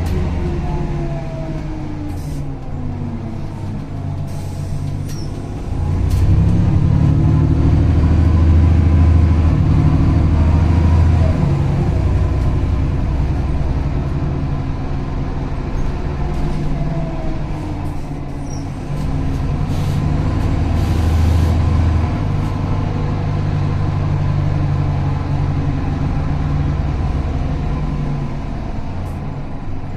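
MAN NL202 CNG city bus with its natural-gas engine running. It slows near the start, then pulls away twice, the engine note climbing each time, about six seconds in and again near twenty seconds. A few brief air hisses come from the bus's air system.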